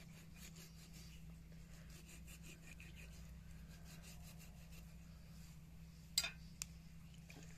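Kitchen knife sawing through raw chicken skin, a run of faint quick rasping strokes over the first few seconds. About six seconds in comes a sharp click, then a smaller one just after.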